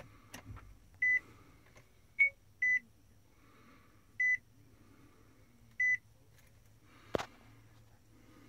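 Short electronic beeps at one steady pitch, four of them evenly spaced about a second and a half apart, with a shorter, slightly higher beep between the first two; a single sharp click follows near the end.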